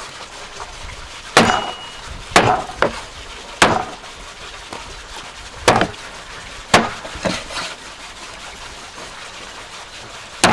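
A cleaver chopping through lamb ribs into a wooden cutting board: about eight sharp chops at uneven intervals, splitting the rib rack.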